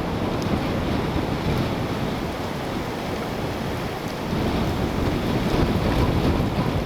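Strong wind gusting through trees, a continuous rushing that swells about four seconds in, with low rumble of wind buffeting the microphone.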